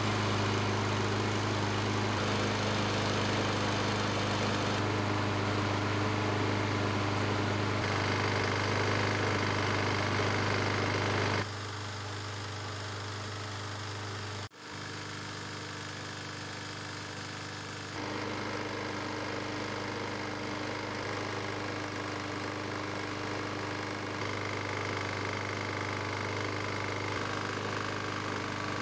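Small lawnmower engine running steadily at a constant speed, its oil a blend of 5W-30 motor oil and graphite. The sound comes in several joined clips, with sudden changes in loudness at each cut and a brief dropout about halfway through.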